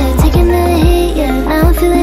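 Background music with a steady beat under a sustained melody.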